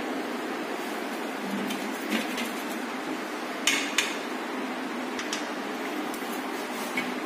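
A few light knocks and clicks from a hand handling a kitchen wall cabinet's lift-up door and its fitting, the two loudest close together about four seconds in, over a steady background hiss.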